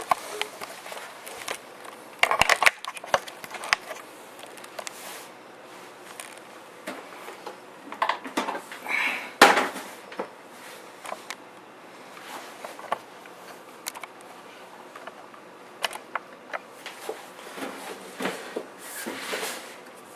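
Scattered clicks, knocks and scrapes of a desktop computer's metal case being handled and opened, its side cover released by its handle and lifted off.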